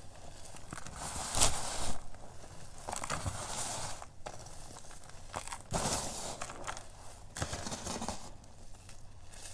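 Bare feet crushing and grinding crumbled Ader gym chalk, gritty crunching in several bursts as the chalk is pressed into powder, loudest about a second and a half in.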